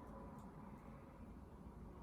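Near silence: room tone with a faint steady hum and one faint tick about half a second in.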